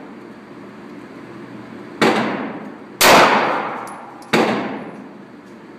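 Three handgun shots, the second about a second after the first and the third just over a second later, each trailing off in a ringing echo; the middle shot is the loudest.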